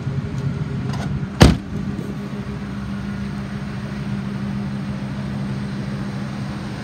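Ford F-550's 6.8-litre V10 gasoline engine idling steadily. About a second and a half in, the truck's door is slammed shut with one loud bang.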